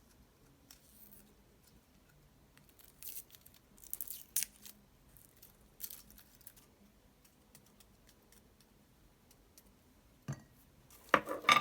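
Handling of ingredients in a kitchen: a few short, soft crinkling and crunching sounds a second or two apart. Then a knock, and a clatter of dishes near the end.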